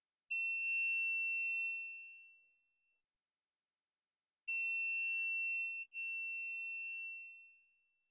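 Multimeter continuity beeper sounding a steady high-pitched tone, twice with a short gap, the second time briefly broken, each beep trailing off: the cleaned speaker button's contacts conduct in the pressed position.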